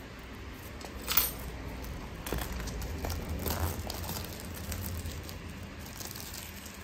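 Hands opening a product's packaging: plastic wrapping rustling and crinkling, with scattered clicks and taps, the sharpest about a second in.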